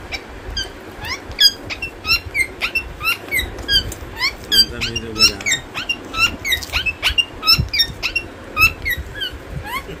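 Pet parrot chattering: a fast string of short, high chirps and whistles, several a second, each sliding up or down in pitch.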